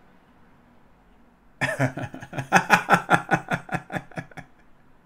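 A man laughing loudly: a run of quick vocal bursts, about four a second, starting about a second and a half in and lasting about three seconds.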